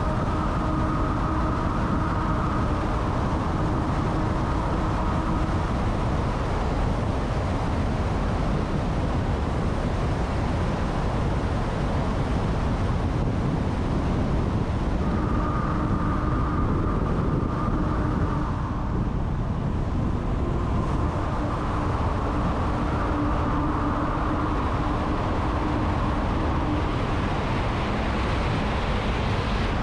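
A car driving at speed: steady tyre and wind noise over a low engine hum. A pitched hum rises above it for a few seconds at the start, again about halfway through, and for several seconds in the second half.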